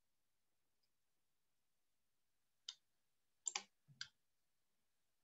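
Near silence broken by a few sharp computer mouse clicks, bunched together in the second half.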